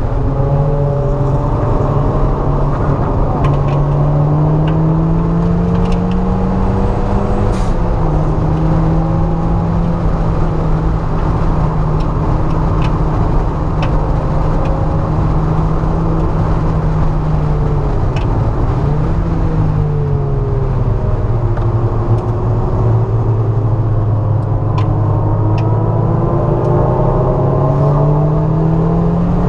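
Mazda MX-5's four-cylinder engine heard from inside the cabin at track speed. Its pitch climbs, then drops suddenly about eight seconds in at an upshift, dips and briefly flares again around eighteen seconds, and rises once more near the end, over steady road noise.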